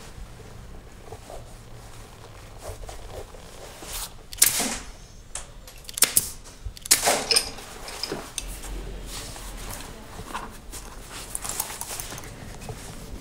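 A pneumatic stapler fires sharp shots into a shoe upper held on a last. The first loud shot comes about four seconds in, and a quick run of several follows about six to seven seconds in, with quieter leather handling and plier clicks between them.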